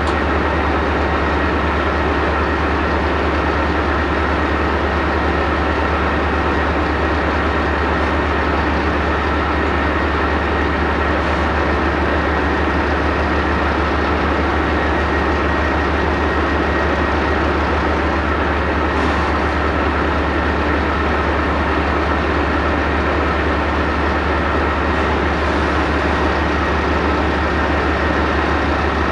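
Bergepanzer 2 armoured recovery vehicle's V10 diesel engine idling steadily while it powers the crane, a low, even drone that does not change in pitch or level.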